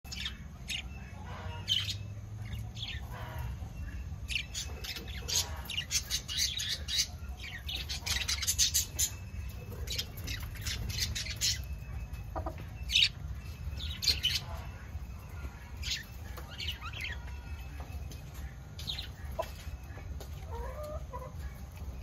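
Budgies chirping and chattering: a string of short, sharp high calls, busiest from about a quarter to halfway through, over a low steady hum.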